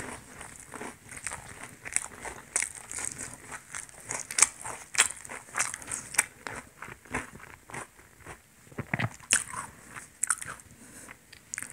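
Close-miked chewing of fried bread: many short, irregular clicks of biting and chewing.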